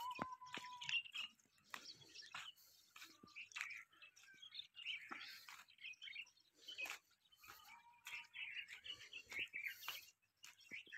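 Small birds chirping and calling over and over, with a held whistled note about a second long near the start and again about eight seconds in. Faint clicks and taps are mixed in.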